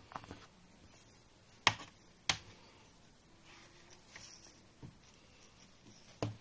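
Sharp clicks and light taps of hand handling during connector contact assembly: two loud clicks about half a second apart, with a few fainter taps around them.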